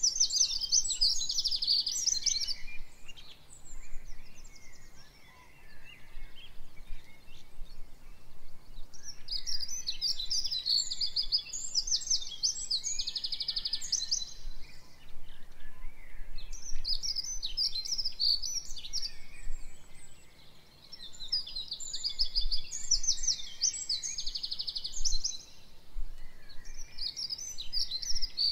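A songbird singing in long phrases of rapid trills and chirps, several phrases of a few seconds each with short pauses between, over a faint steady background hiss.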